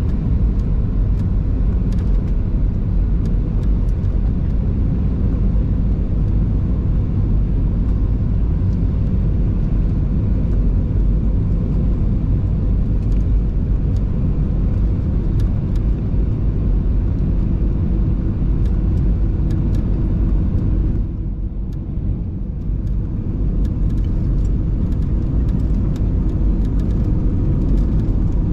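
Steady low rumble of an Airbus A320 heard inside the cabin: the engines and airflow, with a few faint rattles. The rumble eases briefly about three-quarters of the way through, then comes back.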